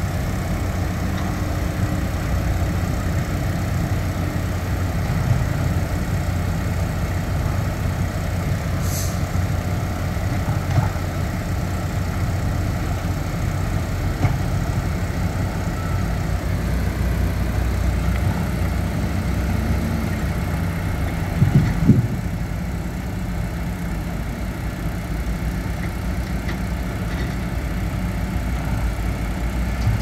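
Diesel engines of a crawler pile-driving rig and surrounding site machinery running steadily, with a short cluster of knocks about 21 seconds in.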